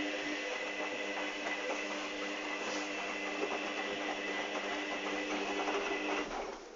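Hoover Dynamic front-loading washing machine's motor turning the drum during the wash, a steady hum with a whine over a rushing noise, which stops about six seconds in as the drum pauses.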